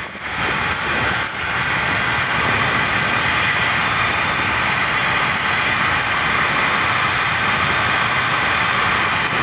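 Mondial mini hair dryer running: a steady rush of air from its blower motor, with no change in speed, being tested after repair.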